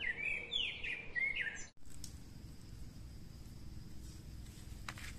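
A songbird chirping in quick, short, gliding calls for about the first one and a half seconds, stopping abruptly; after that only faint, steady outdoor background noise.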